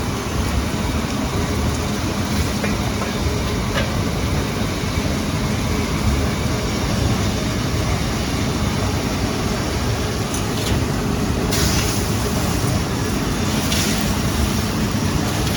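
Steady machine noise of industrial equipment running, heaviest in the low end, with a few faint clicks.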